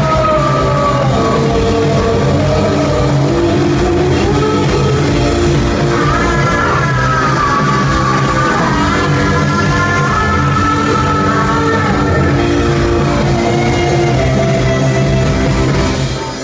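Live rock band playing loudly: drums, bass and guitar with a sung vocal over them. The song stops near the end.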